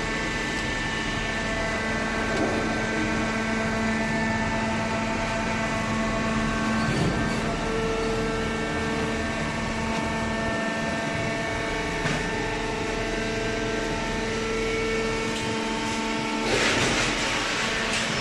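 Small hydraulic cardboard baler running: a steady machine hum made of several steady tones over a noisy rush, with a louder hiss starting near the end.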